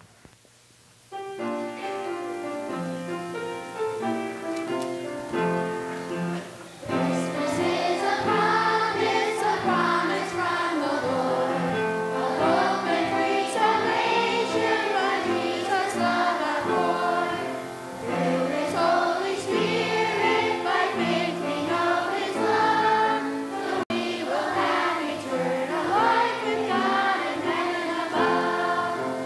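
Children's choir singing with piano accompaniment. The piano plays alone for the opening few seconds, and the voices come in about seven seconds in.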